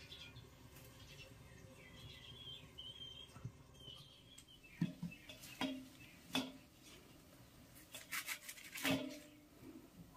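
Cauliflower being cut and broken apart with a knife: a series of sharp, crisp cracks as the stems snap, clustered in the second half. Faint bird chirping a couple of seconds in.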